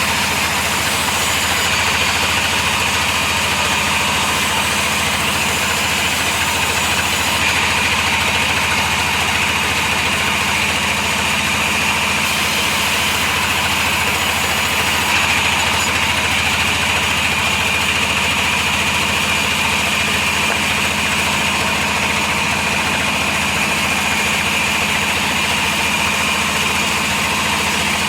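Sawmill saw machinery running steadily: a constant motor hum with a steady higher whine, unchanging throughout.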